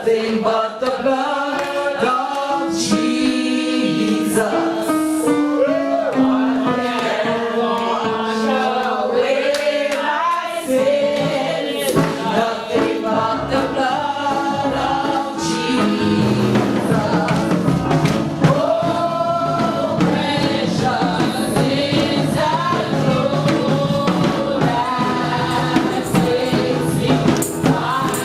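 Gospel worship singing by a choir or congregation, voices together over instruments. About halfway through, the accompaniment grows fuller with a steady beat.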